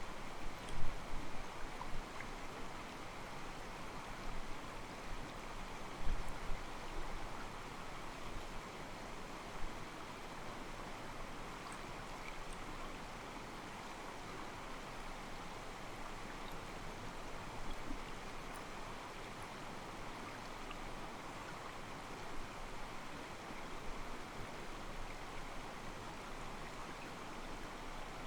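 Mountain stream flowing over rocks: a steady, soft water hiss with water sloshing against the stones. A few low thumps stand out during the first couple of seconds and again about six seconds in.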